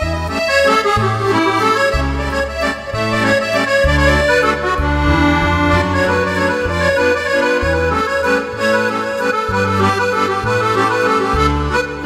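Roland FR-8x digital accordion playing an Argentine waltz (vals): a right-hand melody over left-hand bass notes that change about once a second.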